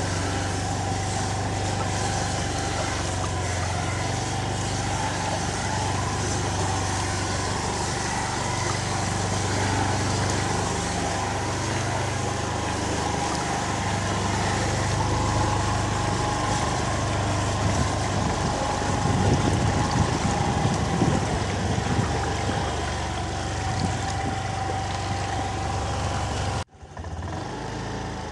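Motorbike engine running steadily at low speed while riding through floodwater, under a constant rushing noise of water and wind. The sound drops out abruptly for a moment near the end and comes back quieter.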